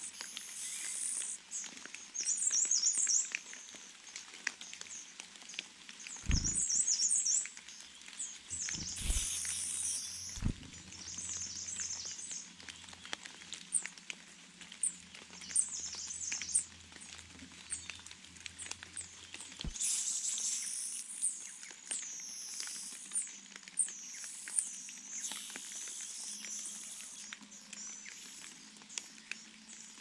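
Sumatran niltava nestlings begging at the nest: short bursts of rapid, high-pitched chittering, repeated every few seconds, with thin, high, bending bird calls around them and a few low thumps.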